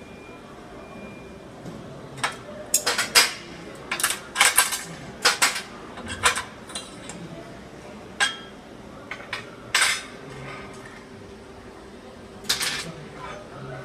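Steel pieces being handled and set down, clinking and knocking together in a run of sharp, irregular metallic clicks. The clicks bunch up between about two and seven seconds in, then come singly a few more times.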